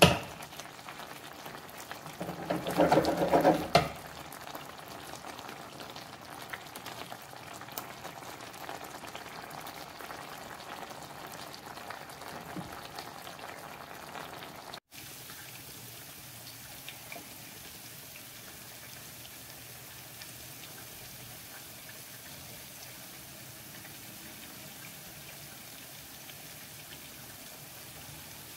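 A pan of chicken, carrots and potatoes bubbling in orange-juice sauce, with a spatula scraping and stirring in the pan loudly for about two seconds near the start. After a sudden break about halfway, a quieter, even hiss of the cooked-down sauce.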